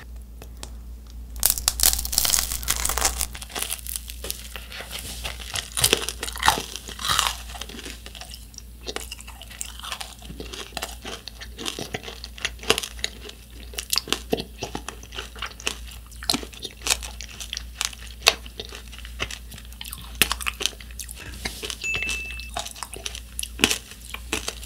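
Close-miked crunching and chewing of a macaron coated in a hardened tanghulu sugar-syrup shell. A burst of loud cracking begins about one and a half seconds in as the candy shell is bitten, followed by irregular crunches as it is chewed.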